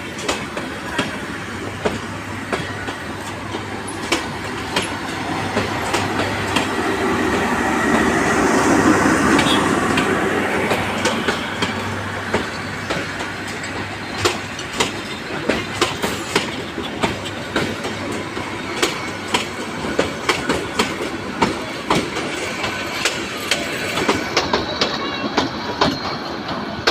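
Lalmoni Express passenger train moving out of the station, its coach wheels clacking rhythmically over the rail joints over a steady rumble that swells loudest about a third of the way through.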